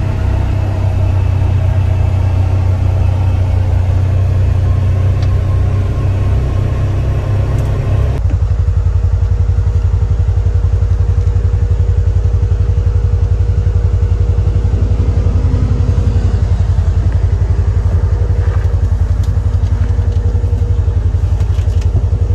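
Vehicle engine idling, a steady low rumble heard from inside the cab; about eight seconds in it changes to an even, rapid throb.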